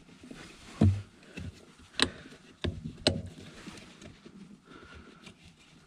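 M Performance brake pedal cover with its rubber boot being slid and pressed onto the brake pedal by hand. About four sharp knocks and clicks of the cover seating on the pedal sound over soft handling rustle, the loudest a low thump about a second in.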